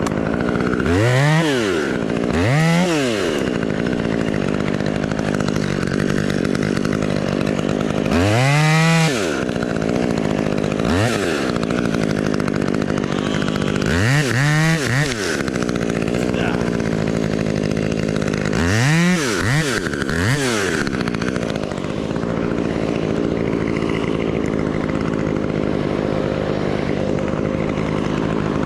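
Chainsaw running steadily at idle, revved up and back down in short bursts several times, in clusters of one or two.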